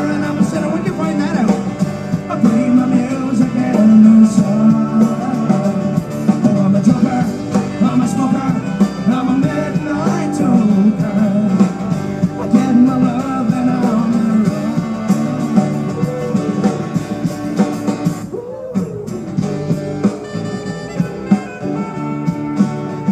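Live band music over a PA: electric guitar, bass and drums with a voice singing, with a short break in the sound about eighteen seconds in.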